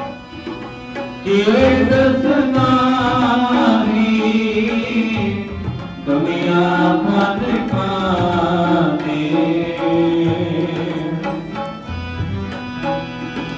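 Sikh kirtan: a male voice singing a devotional melody over tabla and a steady held drone. The singing enters about a second in, breaks briefly midway and drops out near the end, leaving the instruments.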